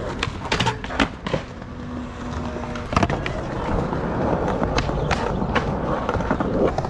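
Skateboard wheels rolling on concrete and tile, with a few sharp clacks of the board striking the ground and ledge in the first second and a half and a louder one about three seconds in.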